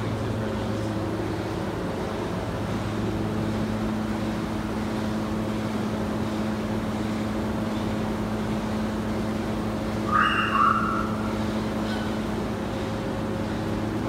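Steady low machine hum made of several constant tones over a hiss. About ten seconds in, a short shrill sound comes twice in quick succession and is louder than the hum.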